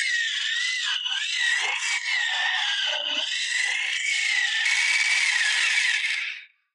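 Corded electric drill with a long bit boring into a wooden tree stump, its motor whining with a pitch that wavers up and down as the load changes. It stops abruptly near the end.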